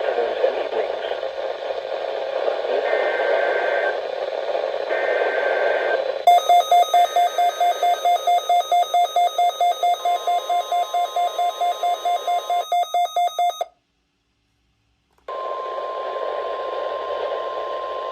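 Weather-radio alert tones over radio hiss: short data bursts of the emergency alert code, then a loud pulsing alarm beep about four times a second, joined by the steady weather radio warning tone. The sound cuts out abruptly for over a second, then the steady warning tone continues over hiss and stops near the end.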